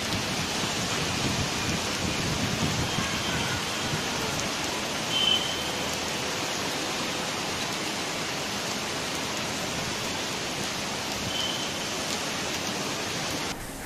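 Heavy monsoon rain pouring down steadily, with a short faint high tone about five seconds in and again near the end.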